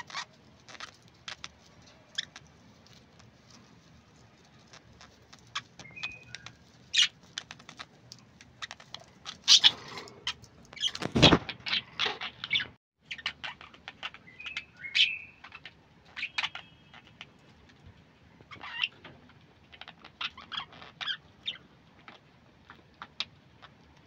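Budgerigars chattering in a cage: a steady string of short clicks and chirps with a few brief whistled notes, and one loud thump about eleven seconds in.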